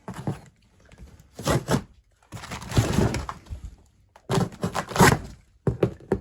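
Cardboard box and packaging being handled and pulled open by hand, in several short bursts of scraping and tearing with knocks.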